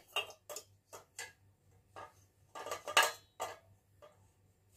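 Metal tubes of a laptop table frame clinking and knocking against each other as the pieces are fitted together, in a string of separate sharp clinks. The loudest clatter comes about three seconds in.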